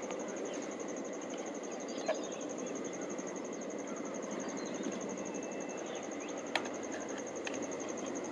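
Steady high, rapidly pulsing insect trill over a low even rush, with a few sharp clicks of clam shells being handled, the clearest about two and six and a half seconds in.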